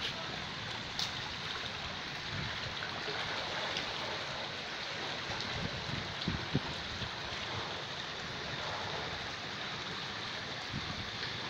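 Steady rushing water noise, with a couple of soft thumps a little past halfway.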